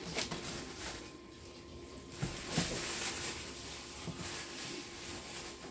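Rustling and light knocks of items being rummaged and lifted out of a large cardboard box, with the loudest knock about two and a half seconds in.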